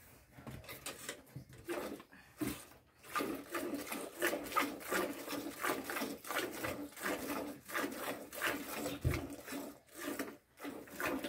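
A cow being milked by hand: rhythmic squirts of milk hitting a plastic bucket, stroke after stroke, with a dull thump about nine seconds in.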